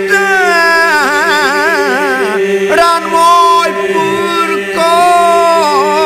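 Albanian iso-polyphonic folk singing: a steady held drone (the iso) under a lead voice that wavers in quick ornaments and breaks off briefly between phrases.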